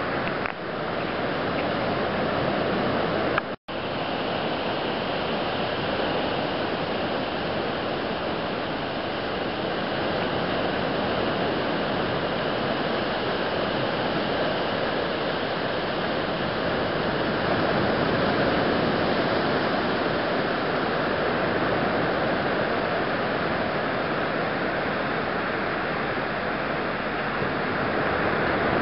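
Steady rush of ocean surf breaking and washing up the beach, with a brief dropout about three and a half seconds in.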